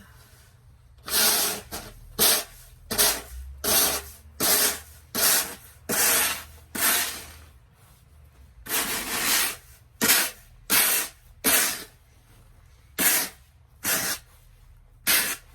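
Snow and ice being crunched or scraped in a steady run of strokes, about one every 0.7 seconds, with two short breaks.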